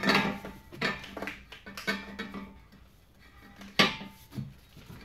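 Steel exhaust pipes clanking together as a length of pipe is offered up against a car's exhaust. There are several ringing metallic knocks, the loudest about four seconds in.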